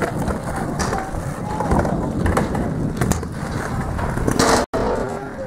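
Stunt scooter's small hard wheels rolling over tarmac and ramp surface, a steady rumble broken by a few sharp clacks of the wheels and deck striking the ground.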